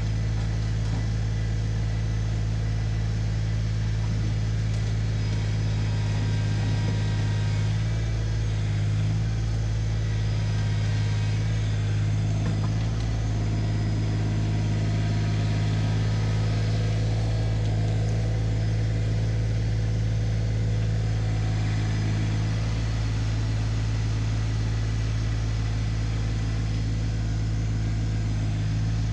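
New Holland Workmaster 25S compact tractor's three-cylinder diesel engine running steadily at a constant throttle while the tractor works its front loader.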